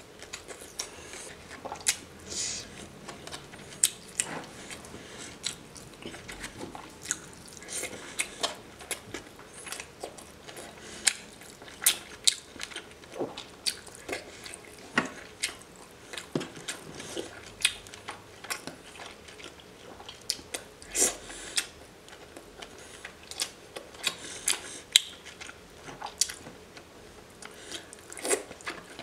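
Close-miked ASMR eating sounds of raw seafood being chewed: wet mouth smacks and squishes with many irregular sharp clicks. A raw scallop is bitten near the end.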